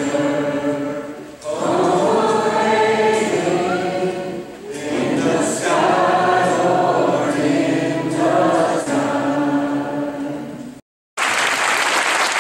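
A school gospel choir singing sustained phrases in harmony, with short breaks between lines; the singing cuts off abruptly near the end, and after a brief silence a short burst of loud, even noise follows.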